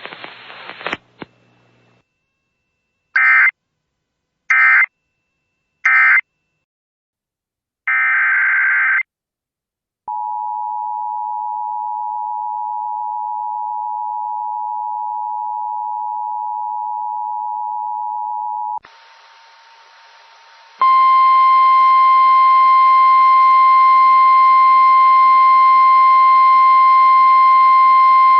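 Emergency Alert System signalling. Three short data bursts, the end-of-message code, are followed by one longer data burst. Then the two-tone EAS attention signal holds steady for about nine seconds, and after a brief hiss a single-tone weather-radio warning alarm sounds, slightly buzzy over static, and cuts off near the end.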